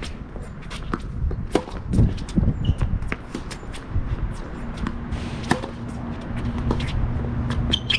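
Tennis groundstroke rally on a hard court: sharp pops of racket strings striking the ball, ball bounces and shoe scuffs, the loudest hits about two seconds in. A faint steady hum runs through the second half.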